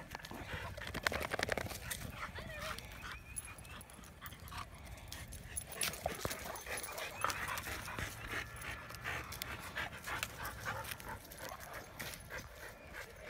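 Dogs whimpering briefly and panting, amid many short clicks and rustles of movement.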